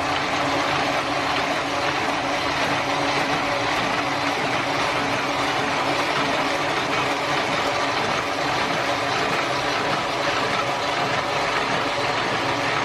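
Small one-colour offset printing press, type 810, switched on and running steadily: an even mechanical noise with a steady low hum.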